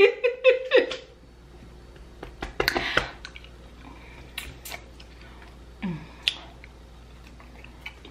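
A short vocal sound trailing off in the first second, then scattered small clicks and rustles of fingers picking through a seafood boil in a tray, with a short rustling burst about three seconds in and another about six seconds in.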